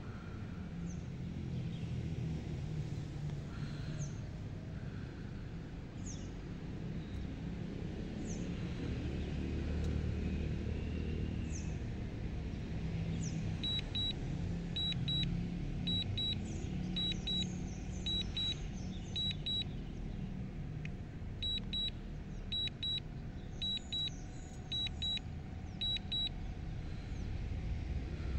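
Warning beeps from a DJI Mini 2 drone's remote controller: pairs of short high beeps repeating about once a second, starting about halfway through, the alert for signal interference. Under them runs a steady low rumble, with a few short falling chirps in the first half.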